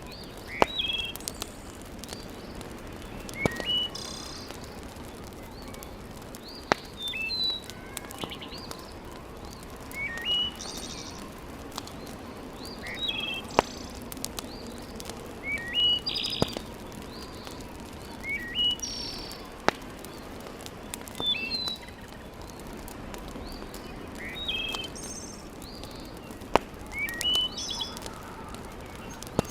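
Birds chirping in short clusters of quick hooked notes, repeating about every three seconds, over a wood fire in a fireplace that pops sharply every few seconds.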